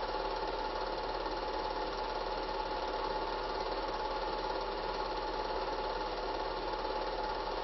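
Steady mechanical whirring of a running cine projector, even and unchanging, over a low mains hum.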